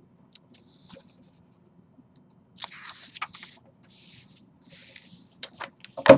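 Sheets of paper sliding and rustling across a desk in several short swishes. A few sharp taps and one louder knock come near the end as a fresh sheet is set down.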